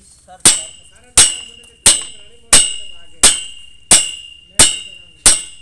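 A hammer striking steel eight times at an even pace, about one and a half blows a second; each blow rings with a high metallic clang that dies away before the next.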